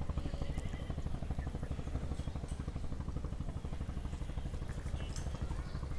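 An engine running steadily, with a rapid low pulsing throughout.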